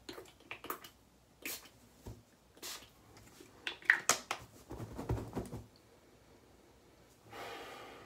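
A man sniffing several times in short, quick breaths, smelling a freshly applied cologne-like scent on his shirt collar and skin, then a longer breath near the end.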